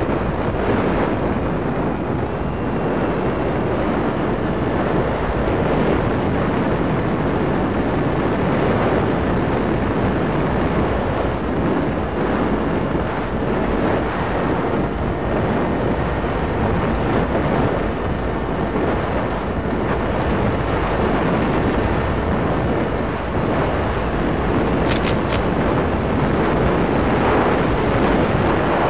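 Steady rush of airflow and motor noise picked up on board the Black Stork FPV model airplane in flight, its electric motor drawing a few amps. A brief pair of high clicks near the end.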